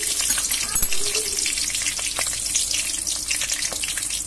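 Green chillies, nigella seeds and whole garam masala sizzling in hot mustard oil in a kadai, a steady frying hiss with scattered crackling pops: the tempering (phoron) spluttering on a low flame.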